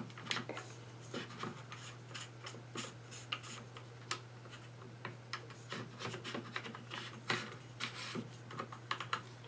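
An AR-15 buffer tube being unscrewed by hand from the lower receiver: faint, irregular scraping and small clicks as the tube turns in its threads and the hands grip and reposition on it.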